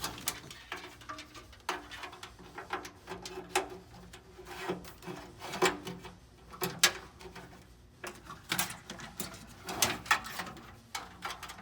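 Wiring harness bundle being handled and worked through a rubber grommet in a car body: irregular rubbing, creaking and small clicks.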